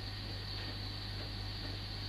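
Steady low electrical hum with an even hiss, unchanging throughout.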